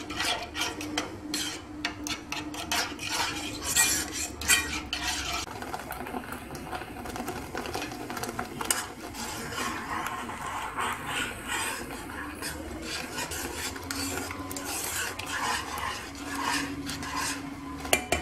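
A metal spoon stirring thick tomato sauce in a nonstick saucepan, scraping the bottom and clinking against the sides. The clinks come thick and fast for the first few seconds, then more sparsely.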